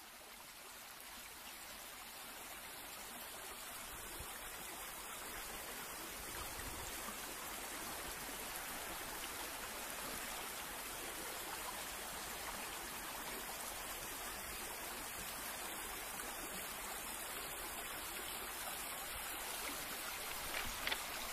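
Steady rush of a flowing stream, fading in over the first few seconds and then holding level.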